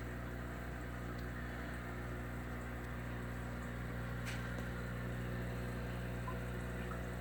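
Steady electrical hum of aquarium equipment, such as a pump or filter, with a single faint tick about four seconds in.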